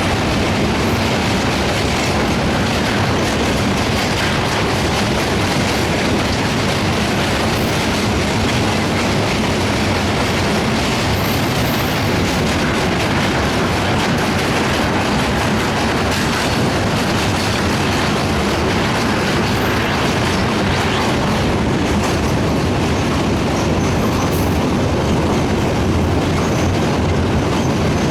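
Passenger train rolling steadily over a rail bridge: a continuous loud rumble with the clatter of wheels on rail joints, unbroken and even in level throughout.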